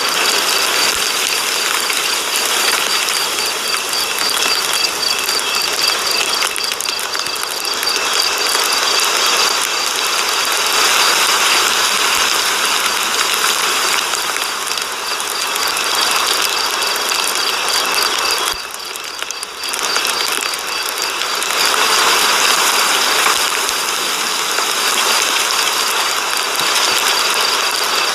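Ratchet wrench clicking in quick, steady strokes, with a brief pause about two-thirds of the way through.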